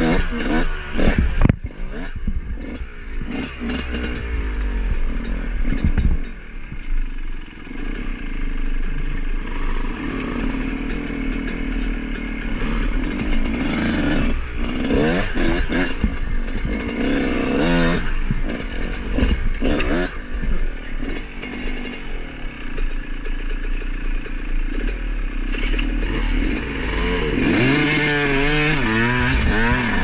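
Dirt bike engines, a Yamaha YZ125 and a Gas Gas 250, revving up and down again and again over trail moguls. The engine pitch keeps rising and falling, with rattling and clatter from the bike over the bumps.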